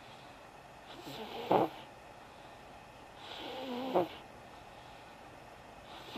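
Sleeping baby snoring: two snoring breaths about two and a half seconds apart, each swelling and ending in a brief louder catch.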